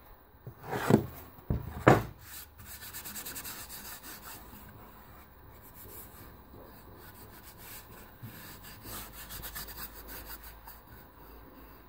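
A hand rubbing back and forth across a CNC-machined MDF board in quick, scratchy strokes, with two louder swipes about one and two seconds in.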